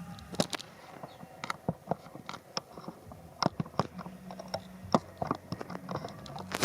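Irregular sharp clicks and crunches, about three a second, over a low steady hum.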